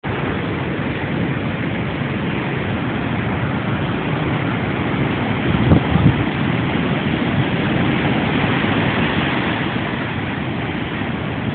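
Heavy storm surf and strong wind buffeting the microphone: a steady rushing noise, with two louder gusts about six seconds in.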